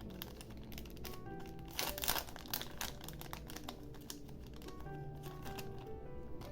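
Soft background music with a short burst of crinkling from stationery being handled about two seconds in, and a few light clicks.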